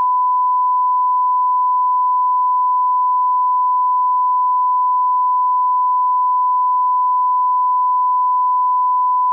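Steady 1 kHz sine reference tone, the line-up tone that accompanies SMPTE colour bars on a video master, held at one pitch and one level without a break.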